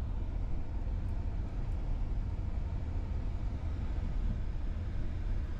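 Steady low rumble heard inside a car's cabin as it drives over a rough, rubble-strewn unpaved street: engine and tyre noise.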